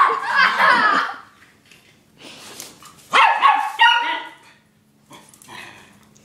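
Small dog barking sharply at another dog in a squabble: a run of high-pitched barks in the first second, a pause, then another run about three seconds in.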